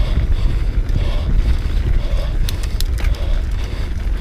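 Downhill mountain bike riding fast over a bumpy dirt singletrack: a steady rumble of wind buffeting the mounted camera's microphone mixed with tyre and frame rattle, with a few sharp clicks about two and a half seconds in.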